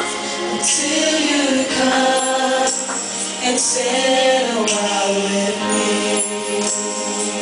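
Women singing a church song together into microphones, their voices amplified through a sound system over instrumental backing, with a few bright percussion shakes.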